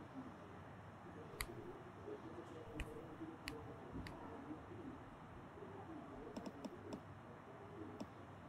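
Fingertip taps on a smartphone touchscreen: single sharp clicks a second or so apart, then a quick run of four as a short word is typed on the on-screen keyboard, and one more tap near the end.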